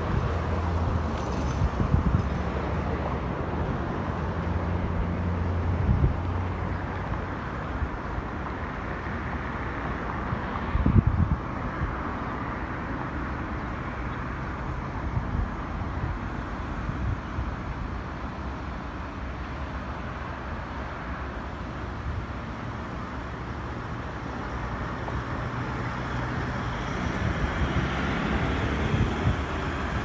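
Outdoor ambience: wind buffeting the microphone in gusts over a steady low hum of engines or traffic.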